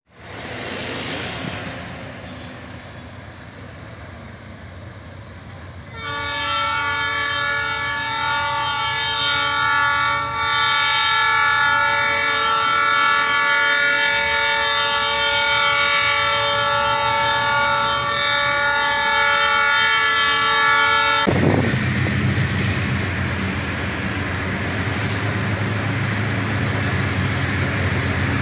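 Multi-tone air horn of the lead GE diesel locomotive of a triple-headed freight train, sounding one long steady chord for about fifteen seconds as a level-crossing warning, then cutting off. After it, the locomotives' diesel engines rumble as they come near.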